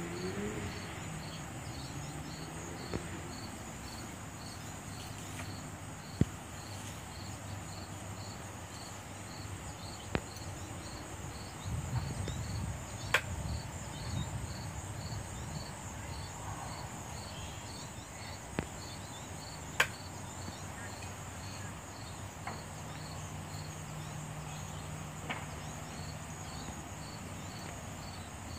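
Insects chirping in the grass: a steady high buzz with a regular chirp repeating about twice a second. A few sharp clicks are heard, and a low rumble comes about halfway through.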